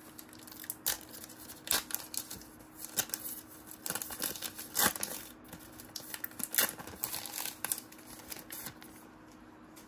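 A trading-card pack wrapper being handled and torn open: irregular sharp crinkling and tearing crackles, dying away near the end.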